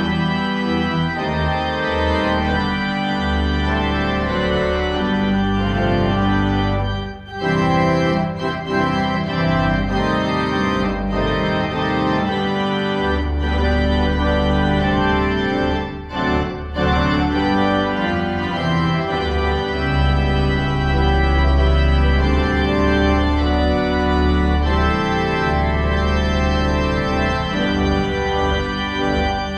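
Organ music: sustained chords over deep bass notes, with two brief pauses, about seven and sixteen seconds in.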